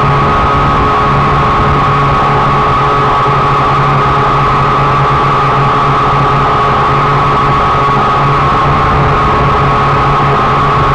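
Small drone's electric motors and propellers, heard through its own onboard camera: a loud, steady whine over a low hum, holding one pitch throughout.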